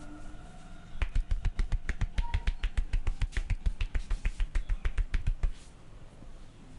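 Rapid percussive massage strokes: hands slapping and chopping on the body, about nine strikes a second. They start about a second in and stop suddenly.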